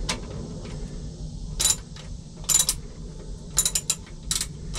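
Ratchet wrench clicking in short bursts about a second apart as a nut on the power steering cooler line is worked loose, over a low steady hum.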